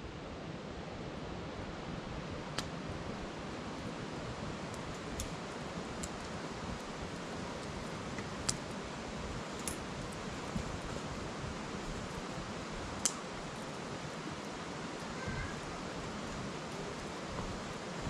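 Wood fire crackling in a metal fire bowl, with a sharp pop every few seconds, over the steady rush of a river.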